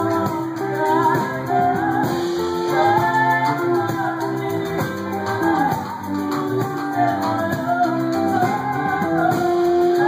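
Live band music: a woman and a man singing over strummed ukulele and guitars.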